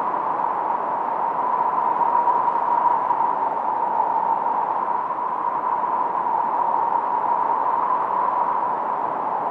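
Filtered noise from a 1972 Minimoog synthesizer, run through a Roland RE-501 Chorus Echo: a steady hiss with a faint pitched ring in the middle of the range, swelling a little about two seconds in.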